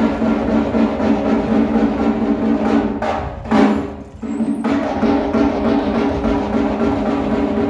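Drum-led traditional dance music: repeated drum strokes over a steady sustained tone. The music breaks off briefly about three and a half to four seconds in, then carries on.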